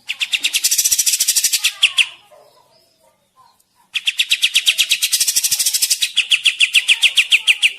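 Sikatan (flycatcher) singing in two bursts of rapid, evenly repeated sharp notes, about ten a second. The first burst lasts about two seconds; after a short pause, the second runs about four seconds.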